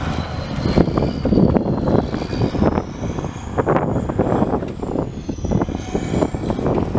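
Cummins NTC 14-litre inline-six turbo diesel of a 1988 Freightliner FLC semi running under varying throttle, its rough rumble overlaid by a high turbocharger whine that rises and falls several times.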